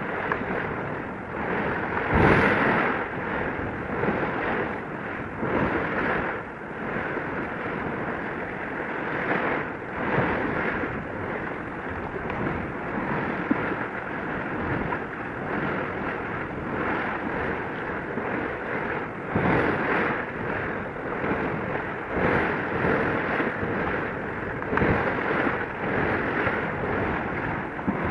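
Wind buffeting the microphone in repeated gusts over a steady wash of sea noise.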